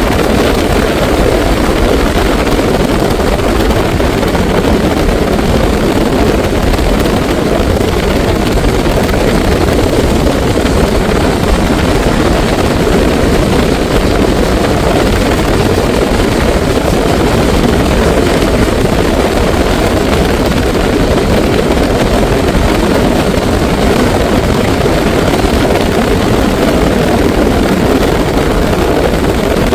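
Steady, loud wind and road noise of a car driving at speed alongside a freight train.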